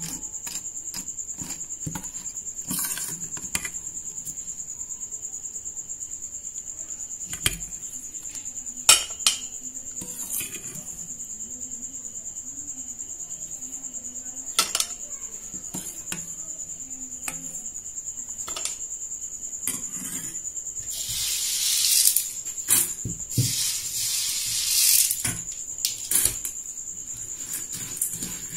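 Metal spoon clinking and scraping against stainless steel bowls as syrup-soaked boondi is stirred and scooped, with a few sharp knocks and a louder spell of scraping about three-quarters of the way through. A steady high whine runs underneath.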